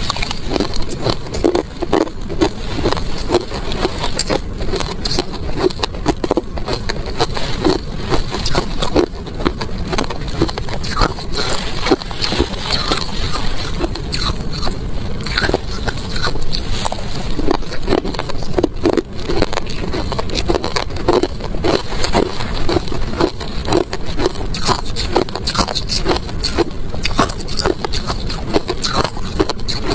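Close-up crunching of crushed ice being bitten and chewed, in rapid crisp crunches, along with a metal spoon scraping and scooping ice in a plastic tub.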